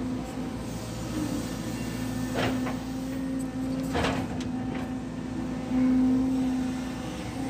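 Excavator engine and hydraulics running steadily under working load, heard from inside the cab as a steady drone. Two short rushing sounds come about 2.5 and 4 seconds in, and the engine note swells briefly about 6 seconds in.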